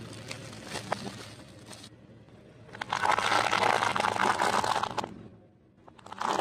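Car tyre rolling over dry fusilli pasta, a loud dense crackling crunch lasting about two seconds before dying away. Earlier, quieter crackles and a few clicks as plastic-wrapped items are pressed under the tyre.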